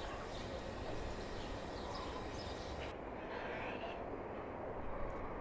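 Faint bird calls over steady low outdoor background noise; the high hiss drops off abruptly about three seconds in.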